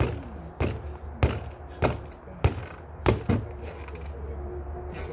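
Boxing gloves punching a freestanding reflex punching ball on its stand: a steady run of about seven sharp smacks, roughly one every 0.6 s, ending with a quick double hit a little past three seconds in.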